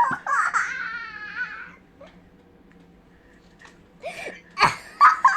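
A baby's voice: a wavering, cry-like wail lasting nearly two seconds, then after a quiet stretch, a few short squeals near the end.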